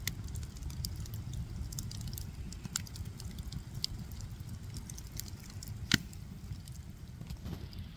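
Wood fire crackling: irregular sharp pops and snaps over a low steady rumble, with one much louder pop about six seconds in.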